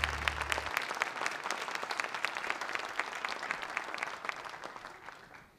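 Audience applauding in an auditorium, with dense clapping that thins and fades out about five seconds in. The last low notes of intro music stop under it within the first second.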